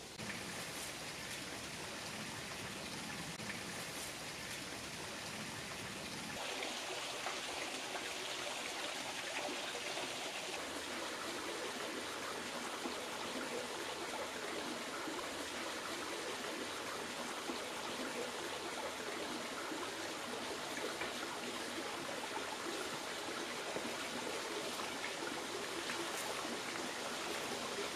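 A creek running: a steady rush of flowing water, its tone shifting slightly brighter about six seconds in.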